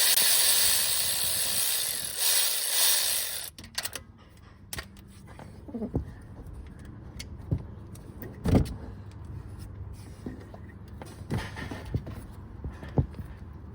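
A loud rushing, rustling noise for the first three seconds or so, then scattered, irregular metal clicks and taps from a small 10mm wrench working the bolt of a Toyota Camry's crankshaft position sensor, over a faint low hum.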